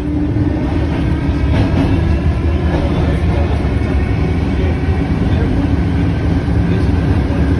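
Cairo Metro Alstom 1981-stock (5700 series) train running, heard from inside the carriage as it pulls out of a station into the tunnel. Wheels on rails make a steady loud rumble, with a low hum running under it.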